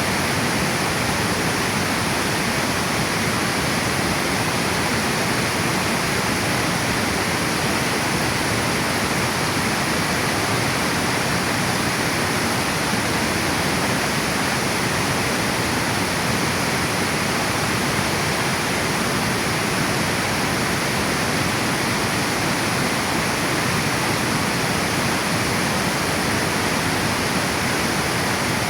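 Water pouring over a river dam, a steady rushing roar with no change.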